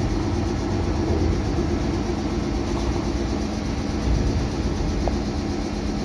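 Meitetsu electric train running along the track: a steady rumble with a low, even hum.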